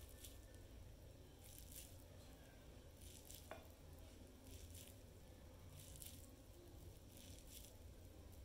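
Faint, soft squishes of sticky cooked rice being squeezed and rolled into a ball by hand, coming every second or so.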